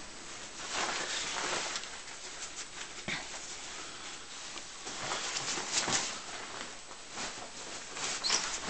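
A dog moving about, with irregular bursts of rustling and shuffling.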